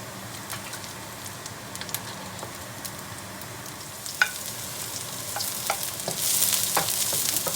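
Cooking oil sizzling in a frying pan, with occasional sharp clicks and scrapes of a spatula against the pan. About six seconds in, the sizzle swells much louder.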